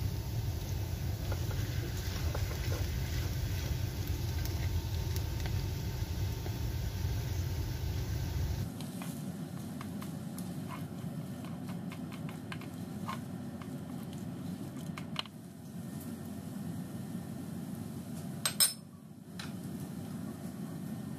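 Silicone spatula scraping and tapping in a nonstick frying pan as mashed boiled potatoes are stirred, with many small clicks and scrapes. A steady low hum underneath changes abruptly about nine seconds in, and there is one louder knock near the end.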